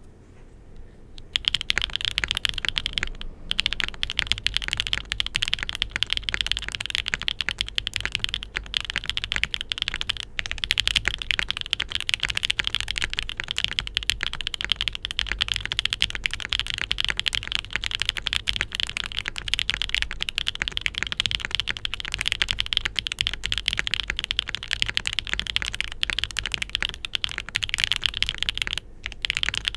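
Fast, continuous typing on a mechanical keyboard with stock, factory-lubed Gateron Smoothie full-POM long-pole linear switches in an aluminium flex-cut plate, under GMK keycaps. The keystrokes start about a second in and run in a dense stream, with a few short pauses.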